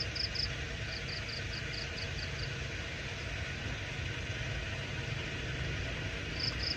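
A steady low motor-like rumble, with two runs of quick, high-pitched chirps at about four a second: one at the start and one near the end.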